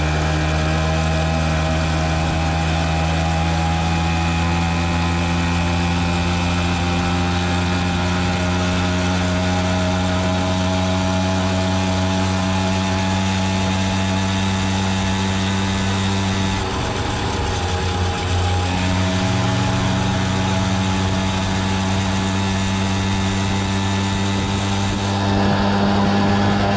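Peugeot 103 moped's two-stroke engine running under way, a steady buzzing note with wind noise over it. The note drops away briefly about two-thirds of the way through, then picks up and grows a little louder near the end.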